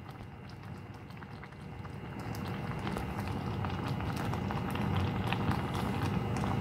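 Pot of seafood stew bubbling at a boil, with many small crackling pops from the bursting bubbles, growing gradually louder. A faint steady hum runs underneath.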